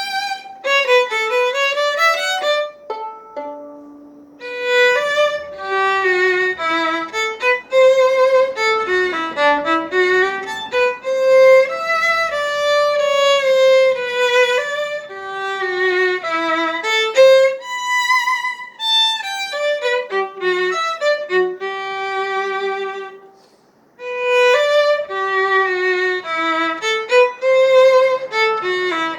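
Solo violin playing a lively tune in separate, clearly stepped notes. It breaks off briefly about five seconds before the end, then starts the tune again.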